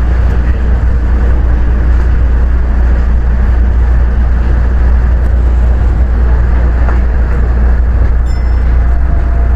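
Osaka Monorail train running along its track beam, heard from inside the car: a steady, loud rumble with a deep drone underneath.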